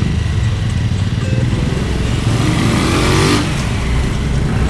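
Motorcycle engine running under way with a steady low rumble; from about two seconds in a rising engine note swells, then drops off sharply a little over three seconds in.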